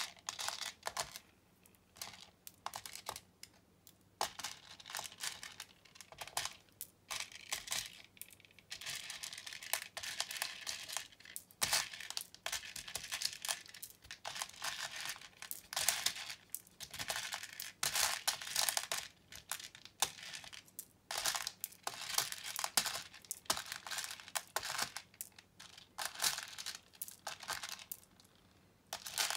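Small transparent plastic beads rattling and clicking against each other and the plastic organizer case as hands sweep and scoop through them, in irregular bursts with brief pauses between.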